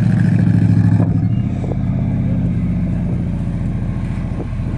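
Off-road 4x4 vehicle's engine running under throttle, loudest for the first second and a half and then easing slightly, with a few faint knocks.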